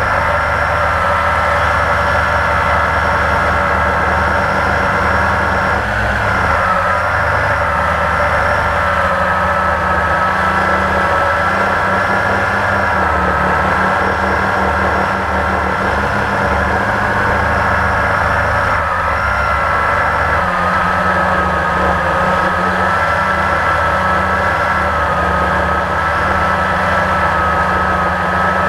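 Blade 350 QX quadcopter's four electric motors and propellers running in flight, heard from the GoPro mounted on the airframe: a steady whine over a low buzz, shifting slightly in pitch now and then as it manoeuvres.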